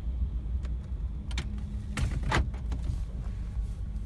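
Steady low rumble of a car's engine running, heard from inside the cabin, with a few short knocks and rustles about two seconds in.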